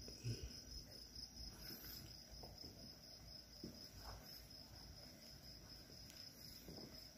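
Faint, steady chirping of night crickets, with a few faint soft knocks.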